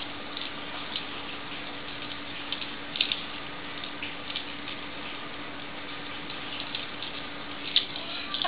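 A few faint plastic clicks and taps of Lego Hero Factory pieces being handled and pushed together, the sharpest one near the end, over a steady hiss and low hum.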